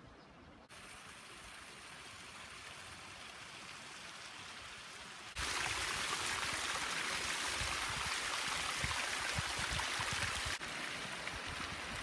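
Hot spring water pouring from a plastic pipe and splashing down over rocks: a steady rushing that sets in abruptly about five seconds in and drops back a little near the end. Before it there is only a fainter steady hiss.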